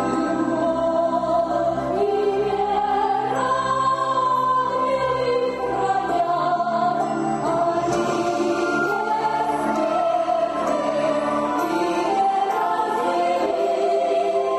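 Choral singing: several voices together on long held notes with a slowly moving melody.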